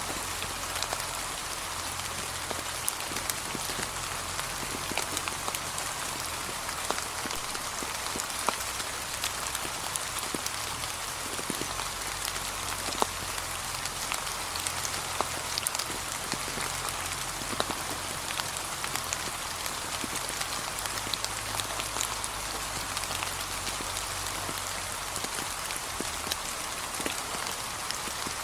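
Light, steady rain falling on a path of fallen autumn leaves, with many separate drops tapping through an even hiss.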